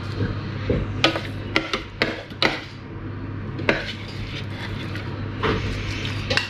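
A metal spoon scraping thick curry paste out of a plastic food-processor bowl and knocking it off into a bowl: a handful of uneven clinks and scrapes.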